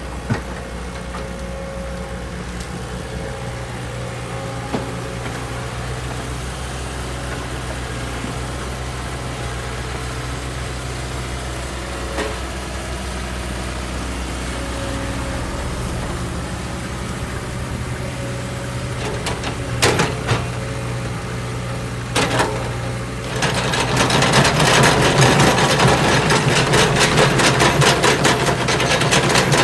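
Excavator's diesel engine running steadily, with a few short knocks. Near the end a loud, fast, rhythmic hammering starts and keeps going.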